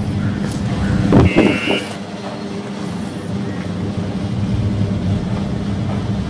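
Small patrol boat's outboard motor running steadily as it passes. About a second in, a short, loud, high-pitched sound cuts in over it.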